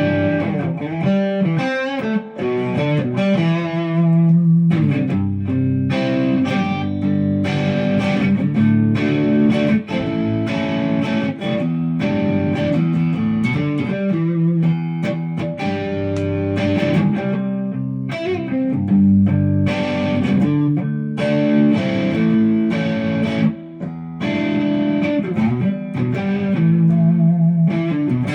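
A 1974 Made-in-Japan Ibanez Rocket Roll electric guitar played through an amp set to a crunch (light overdrive) tone, strumming chords mixed with runs of single notes. There are short breaks between phrases.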